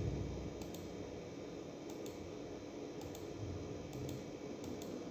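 Faint clicking: about five pairs of short clicks, one pair every second or so, over a low steady room hum, with a soft low thump at the very start.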